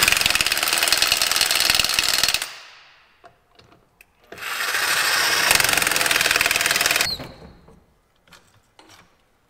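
Power impact wrench hammering trailer wheel lug nuts tight to a set torque, in two long rapid runs about two seconds apart. A few light clicks follow near the end.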